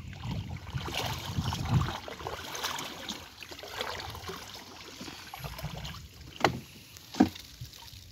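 Water splashing and sloshing around a small bamboo-outrigger canoe while a fishing net is worked in the water, with scattered small knocks and two sharp knocks a little under a second apart near the end.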